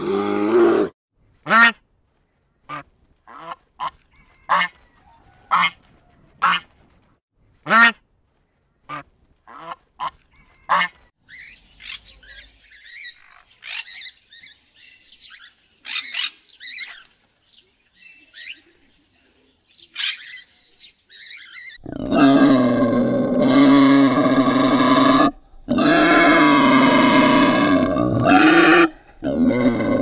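Budgerigars chirping and twittering in a loose, scattered series, then loud continuous honking calls for the last eight seconds, broken twice for a moment.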